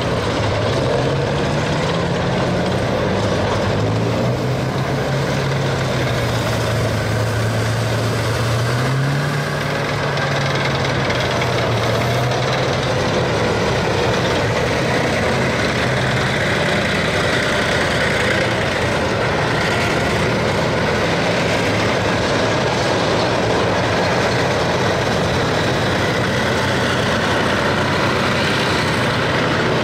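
Tracked armoured vehicles, an infantry fighting vehicle and main battle tanks, running their engines and clattering on their steel tracks while turning on pavement. The low engine note sinks and then rises again about nine seconds in.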